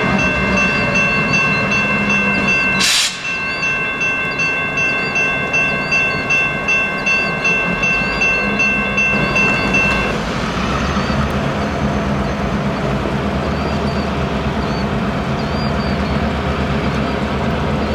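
Diesel freight locomotives running slowly with a steady low engine rumble, their bell ringing about twice a second until it stops about ten seconds in.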